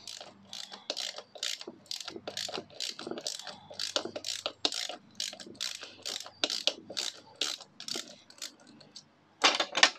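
Yamaha TZR 125 gearbox being turned by hand in the open crankcase, the gears and selector mechanism clicking over about three times a second. Near the end there is one louder burst.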